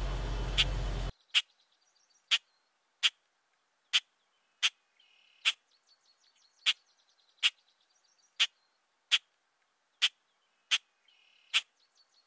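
Short, sharp animal chirps repeating about once a second, with faint high trilling between them. Steady outdoor background noise runs first and cuts off suddenly about a second in.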